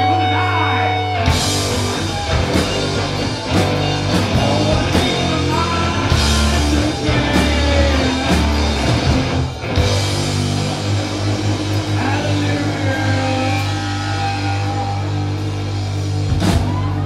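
Live rock band playing loudly on electric guitar, bass and drum kit. A held note rings out for about a second, then the full band comes in with cymbal crashes that recur through the passage.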